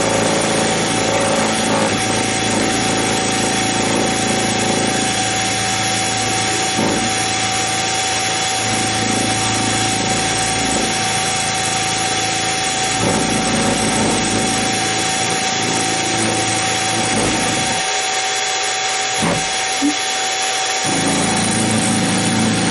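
Harbor Freight 44991 mini mill running with a steady whine, its end mill cutting into a metal link that is fed by hand into the cutter on a free-turning rotary table. The cutting noise eases for a few seconds near the end.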